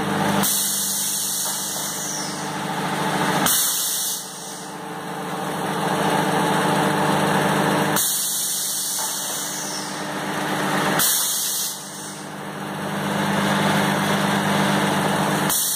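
Thermocol plate thermoforming machine running through its forming cycle: a steady hum broken by sudden air hisses from its pneumatic press, two about three seconds apart, repeating every seven to eight seconds.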